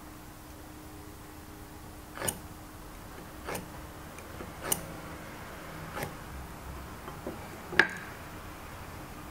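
Marking knife scoring layout lines on wood against a steel square: a handful of light, sharp clicks about a second apart, the last one the loudest.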